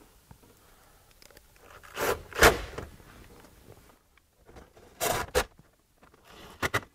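Hard plastic dash trim rubbing and scraping as it is fitted around the gauge cluster, in two louder bursts about two and five seconds in, followed by a couple of sharp clicks near the end.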